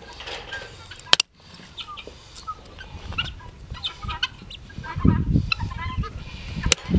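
Chickens clucking in short calls, with a sharp click just after one second. About five seconds in, a low rumbling noise rises underneath.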